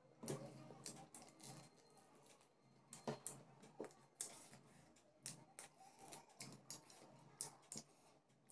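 Close-up eating sounds: irregular soft clicks and wet smacks from chewing and from bare fingers working rice and fish on a plate, a few louder ones about a quarter second in and around three and four seconds.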